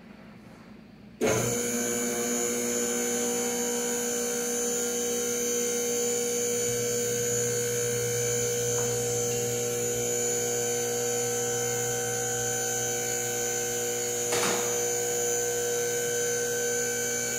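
Hydraulic car lift's electric pump motor running as it raises the car: a steady hum with a high whine that starts abruptly about a second in, with one brief knock near the end.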